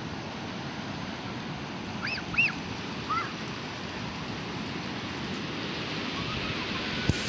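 Steady wash of sea surf, with a few short high-pitched calls about two seconds in.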